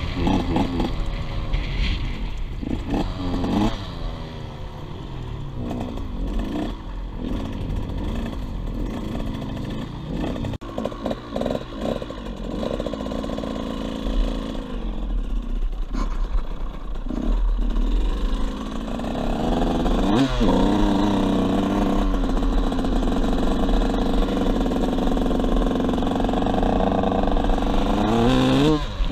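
KTM 85 SX two-stroke motocross bike engine being ridden, its revs rising and falling again and again as the throttle is worked. The engine is held at higher, louder revs for most of the second half.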